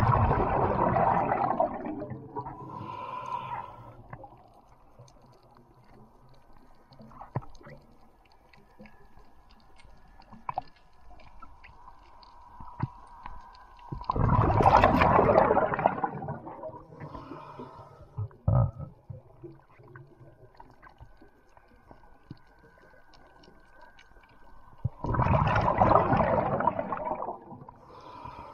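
Underwater sound picked up through a camera's waterproof housing: three loud rushing bursts of water noise about twelve seconds apart, each lasting two to three seconds, with faint scattered clicks between them.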